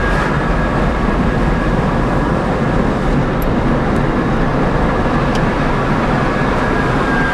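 Road and tyre noise inside a small Smart electric car's cabin while driving, with a thin, steady high whine from the electric drive that falls slightly in pitch near the end.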